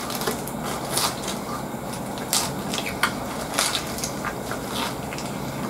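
Close-up biting and chewing of a lettuce-wrapped burger, a homemade copy of MOS Burger's Natsumi: crisp lettuce crunches at an irregular pace, a few of them louder, with the paper wrapper crinkling.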